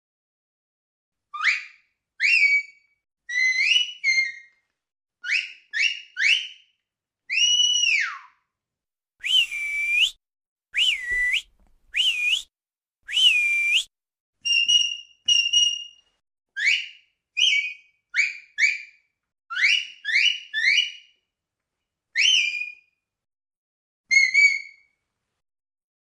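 Sheepdog herding whistle commands: a series of sharp, high whistle blasts in short groups with silent gaps. Most are quick upward-sweeping notes. Around the middle come one long note that rises and falls and then four longer notes that dip and rise again.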